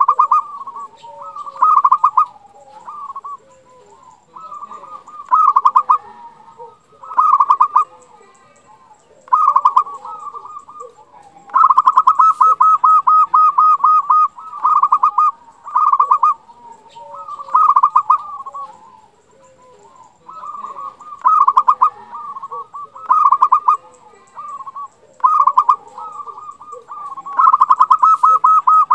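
Zebra dove (perkutut) cooing: repeated phrases of rapid, rolling staccato notes every second or two, with two longer rolling runs, one about halfway through and one near the end.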